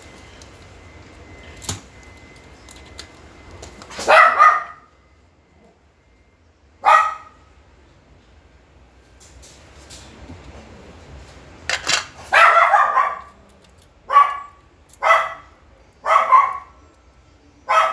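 A dog barking repeatedly, starting about four seconds in with single barks a few seconds apart, then coming faster, about one a second, near the end.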